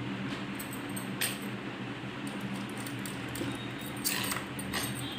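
Sheer fabric rustling and crinkling as it is folded into small pleats by hand, in short rustles about a second in and again near the end, over a steady low hum.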